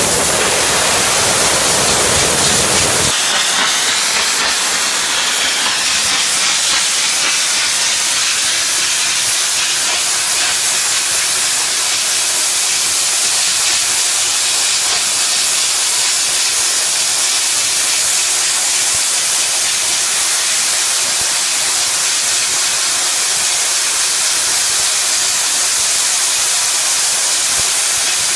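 High-pressure saturated steam, at about 120 psi, blowing off from a gasification boiler through a half-inch valve and line as a loud, steady hiss. For the first three seconds or so the rush is rougher and fuller, then it settles into an even hiss.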